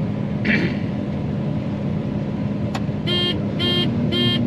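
A John Deere 9500 combine running steadily while harvesting corn, heard from inside the cab as a constant drone with a low hum. Near the end, three short electronic beeps sound about half a second apart.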